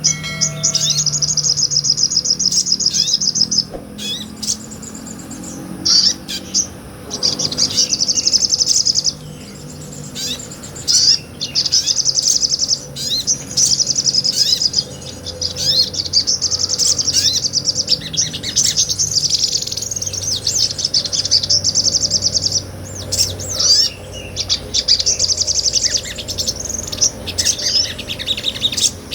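Sogon, a small nectar-feeding songbird, singing in long, fast, high-pitched chattering trills of a few seconds each, with short breaks between phrases.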